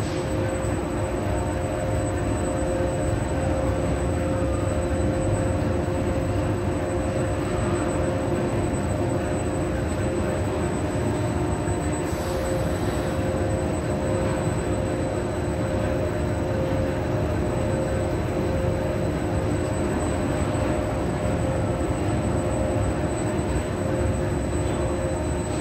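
A HUSS Sky Tower's hoist drive running: the large electric motor and the wire-rope traction sheaves make a steady machine rumble with a constant whine.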